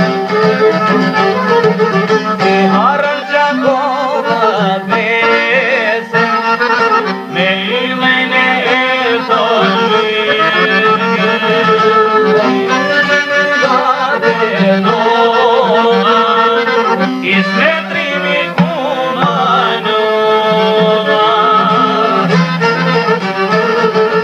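Instrumental passage of an Albanian folk song: a melody line over a steady low accompaniment, with no singing.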